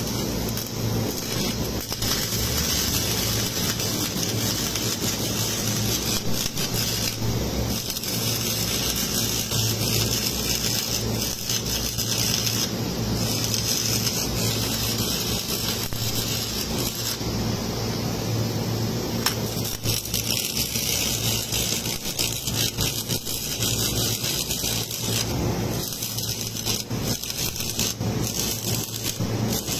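Stick (shielded metal arc) welding: the electrode's arc crackles and sizzles steadily against the metal, over a steady low hum.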